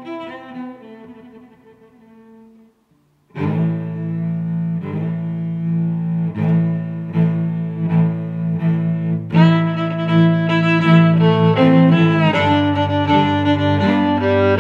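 Background instrumental music. One piece fades out, there is a brief silence about three seconds in, then a new piece starts with sustained low notes and a steady pulse, growing fuller about nine seconds in.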